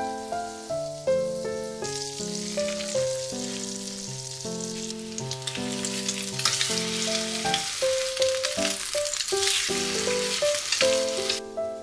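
Egg-soaked bread frying in butter in a frying pan, sizzling and crackling from about two seconds in until it cuts off suddenly near the end. Light background music with melodic notes plays throughout.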